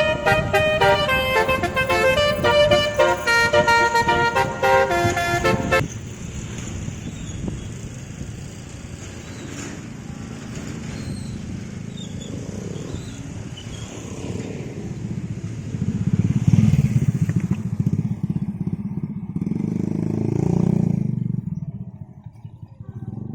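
A telolet horn, a multi-note musical air horn, plays a quick stepping tune for about six seconds and cuts off abruptly. A vehicle engine then runs, its rumble swelling about two-thirds of the way in and again near the end.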